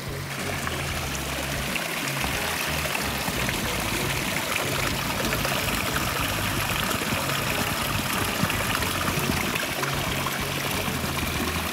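Small spring stream trickling and splashing down mossy rocks, its water pouring over a plastic bottle held under the flow to fill it. Background music with a low bass line runs underneath.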